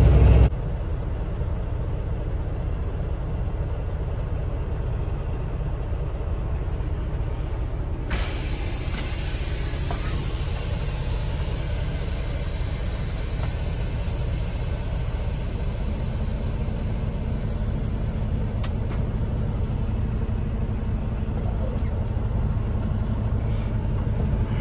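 Half a second of louder road noise that cuts off abruptly, then a semi-truck's diesel engine running slowly or idling, heard inside the cab as a steady low rumble.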